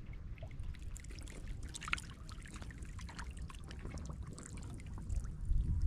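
Shallow water splashing and trickling in small irregular splashes, over a low rumble that grows louder near the end.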